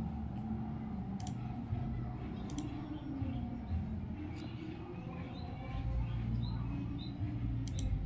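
Sharp clicks of a laptop's pointer button, four or so spread across the stretch, some heard as quick double clicks, over a steady low rumble.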